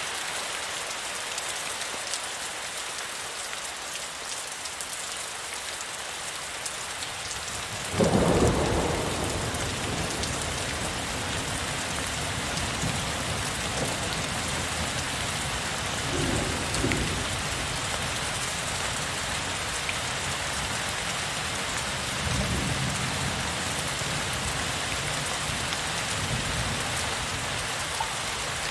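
Heavy rain falling steadily, with a sudden thunderclap about eight seconds in that rolls on into low rumbling, and further low thunder rumbles later.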